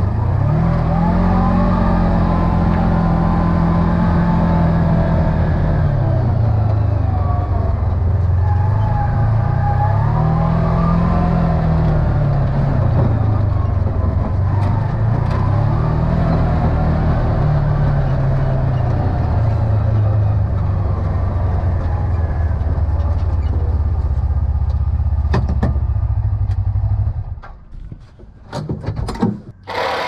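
Side-by-side utility vehicle's engine running under load as it climbs a dirt trail, its pitch rising and falling with the throttle several times. The engine sound cuts off near the end, followed by a few sharp clicks.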